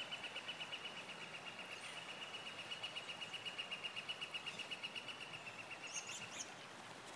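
A high, rapidly pulsed trill, an animal's call held at one pitch, stopping about six and a half seconds in, with a few brief higher chirps just before it ends.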